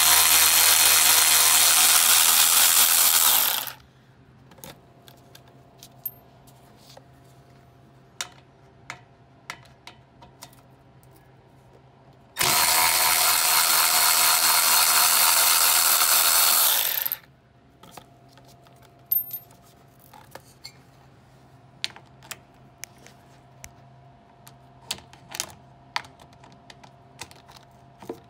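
Milwaukee cordless ratchet running in two long spins, backing out Torx bolts that hold a skid plate. The first spin cuts off about four seconds in, and the second runs for about five seconds from twelve seconds in. Between them are scattered small clicks of the tool and bolts being handled.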